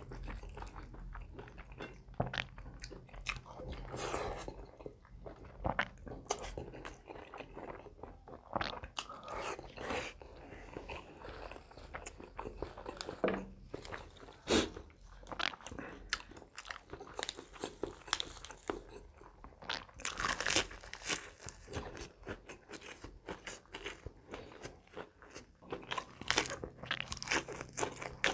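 Close-miked eating: a person chewing and biting with irregular crunches and wet mouth sounds, including crisp fresh lettuce leaves.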